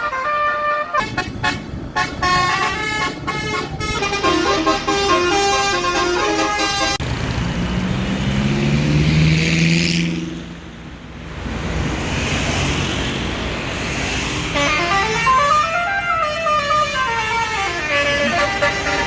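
A tour bus's basuri (telolet) multi-tone horn plays tunes, the notes stepping quickly up and down in melodic phrases. After a brief lull, a long horn tone slides up in pitch and back down.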